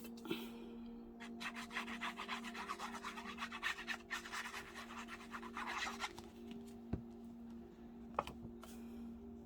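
Paper being rubbed down by hand in quick back-and-forth strokes for about four seconds, pressing a freshly glued piece flat onto a card, followed by two light taps.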